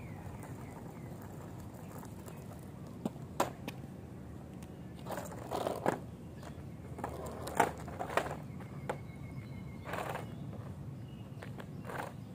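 Caster board knocking and clattering on an asphalt path as it tips over and is stepped off and handled: a scattered string of sharp knocks, clustered around the middle, over a steady low background noise.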